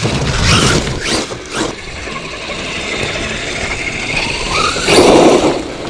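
Axial Ryft RBX10 RC rock bouncer driving off-road, its Castle Copperhead 10 brushless motor whining in bursts of throttle. The loudest burst, with a rising pitch, comes about five seconds in.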